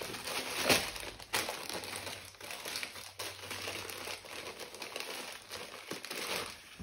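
Pink pineapple-print wrapping crinkling and rustling as it is pulled open by hand to free a folded T-shirt, with two sharper crackles about a second in.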